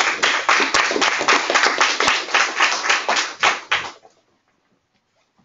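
Audience applauding, a dense patter of many hands clapping that cuts off suddenly about four seconds in.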